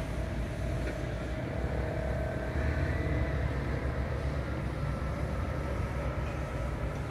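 Steady low rumble with a faint engine hum that swells slightly about three seconds in: a motor vehicle running at a distance.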